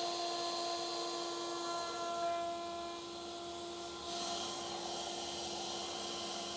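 Router in a SawStop router table running with a steady high hum, fitted with a round-over bit taking a shallow pass on the corners of a wooden box. The noise of the bit cutting wood joins in about four seconds in.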